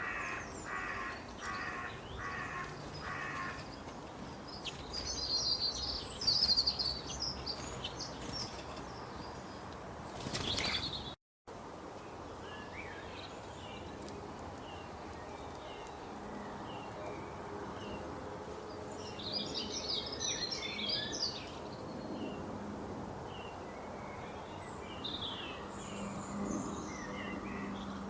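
Wild birds calling over a steady outdoor hiss: four harsh calls in a row at the start, then scattered high chirps and trills. The sound cuts out completely for a moment about eleven seconds in.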